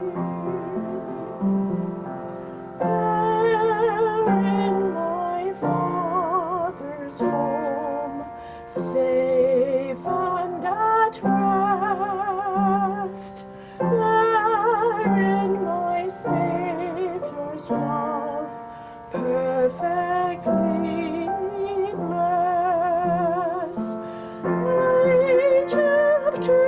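A woman singing a slow solo with vibrato in held notes, accompanied by piano.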